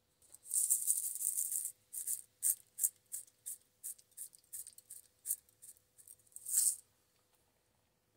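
Shaker jar of Zatarain's garlic and herb seasoning shaken over sliced green tomatoes, its dry granules rattling. One long shake, then a run of quick separate shakes about three a second, ending in a stronger shake.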